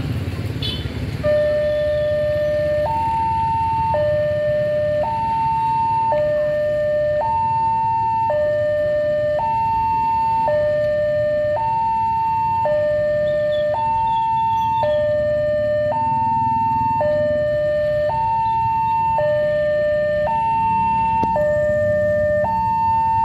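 Railway level-crossing warning alarm sounding its electronic two-tone signal, alternating a lower and a higher tone about once a second. It starts just over a second in, warning of an approaching train, over the low rumble of road traffic.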